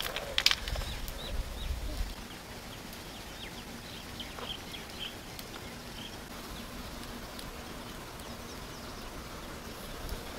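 Small birds chirping in short, quick falling notes over a steady outdoor hiss, with a few sharp knocks at the very start.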